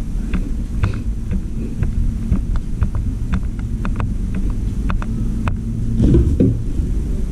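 Footsteps on a tiled floor, a light tick every half second or so, over a steady low rumble, with a louder low swell about six seconds in.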